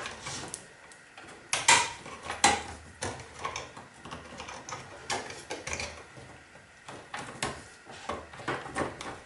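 Scattered clicks, taps and light metallic knocks from hands working inside a sheet-steel computer chassis, tugging at cables and connectors to free an expansion card. The two loudest knocks come about a second and a half and two and a half seconds in.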